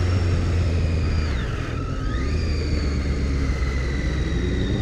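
2014 Triumph Street Triple R's 675 cc inline-three engine running under way, with wind rush. The revs dip about a second and a half in and then climb again.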